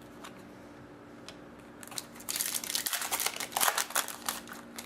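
Plastic wrapper of a hockey card pack crinkling as it is handled, starting about two seconds in after a few faint clicks.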